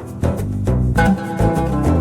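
Background music with a plucked bass line and a steady beat.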